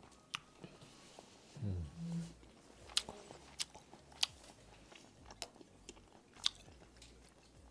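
A person chewing a mouthful of rice cake soup with soft chewy rice cakes, picked up close on a clip-on microphone, with sharp wet mouth clicks and smacks every second or so. About two seconds in comes a short low hum from the eater.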